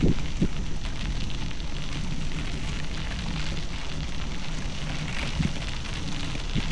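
Bicycle tyres rolling over a gravel trail: a steady crackling noise with a low rumble underneath, and a couple of brief knocks from bumps, one right at the start and one about five seconds in.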